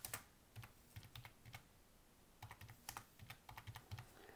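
Typing on a computer keyboard: a run of faint, irregular keystrokes with a short pause about halfway through.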